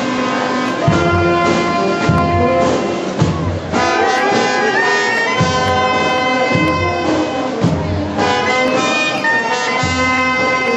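Brass band playing long held notes, with a low beat about once a second underneath.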